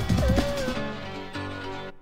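1993 electronic dance track played from a vinyl record: a wavering synth lead over drums, then about three quarters of a second in the drums drop out, leaving sustained low synth notes that fade away near the end.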